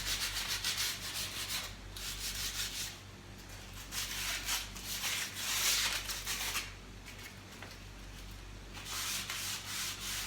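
Sandpaper rubbed by hand over a surface in spells of quick back-and-forth strokes, with short pauses between them: light sanding to scuff off varnish before painting.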